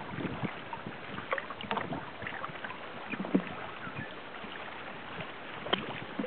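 Water splashing and lapping against a sail-rigged inflatable kayak as it moves, with many small scattered splashes and taps over a steady wash.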